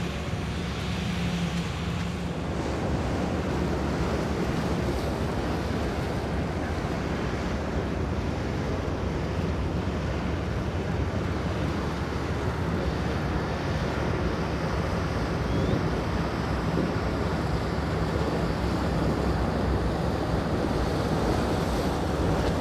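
Powerboat engines running at speed, mixed with spray and the surf. The sound grows slightly louder toward the end as a center-console boat closes in.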